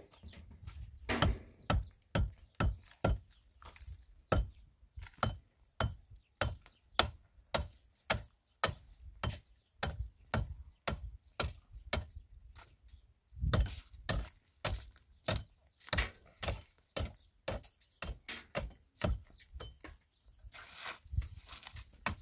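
A run of sharp knocks or blows, about one to two a second, with a few short pauses.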